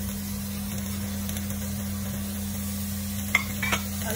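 Sliced mushrooms and spiralized courgette sizzling in a non-stick frying pan over a steady low hum, with two sharp clicks of a spatula against the pan near the end as stirring begins.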